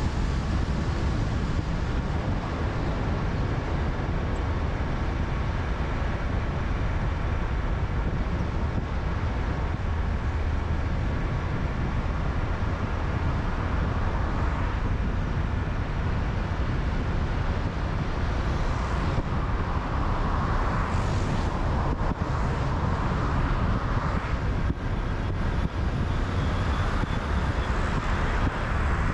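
A car driving on a highway: steady engine and tyre road noise, with a few louder swells from other traffic in the second half.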